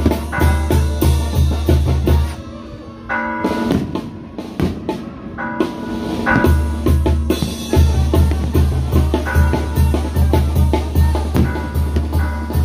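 Music with a drum kit: a steady, heavy bass-drum beat with snare and pitched instruments above it. The low beat drops out about two seconds in and comes back about six and a half seconds in.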